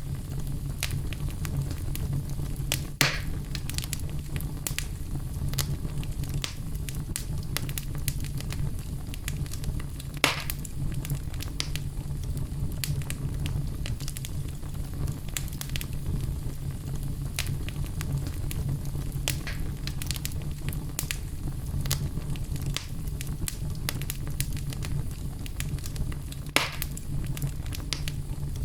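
Wood fire burning in a fireplace: a steady low rumble with constant small crackles and three louder pops, at about 3, 10 and 26 seconds in.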